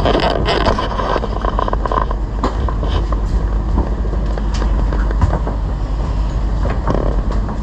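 The yacht's generator running with a steady low hum, with scattered clicks and knocks over it.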